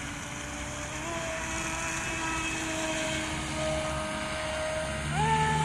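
Electric whine of an RC boat's Leopard brushless motor driving the propeller, holding a steady pitch and then rising sharply near the end as the throttle is opened.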